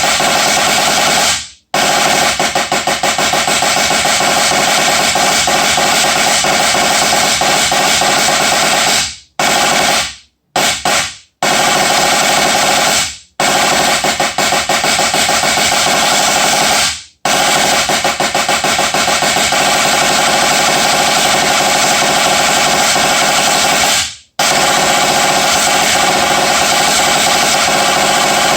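Drum solo played in fast, unbroken rolls of rapid strokes, stopping dead for brief moments about six times, with a quick run of short stops near the middle.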